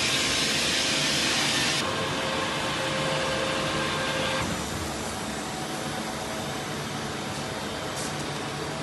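Okuma MILLAC 800VH vertical machining center running: a steady mechanical hum with a few steady tones, under a strong hiss that drops in two steps, about two seconds in and again about four and a half seconds in.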